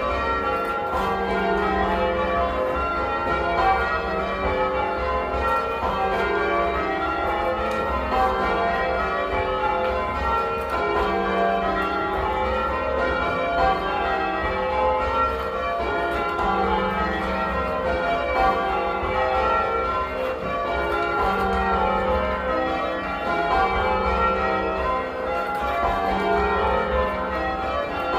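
Ring of eight church bells, a 1954 Gillett & Johnston peal, being change rung at a steady even pace, the strikes following one another without pause and the deep tenor sounding again and again.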